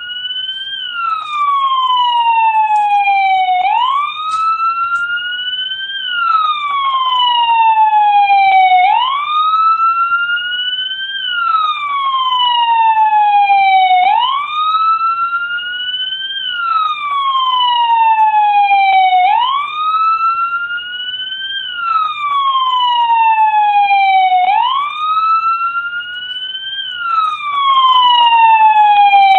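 American police car siren sounding the wail, its pitch sweeping up and back down in a smooth cycle about every five seconds.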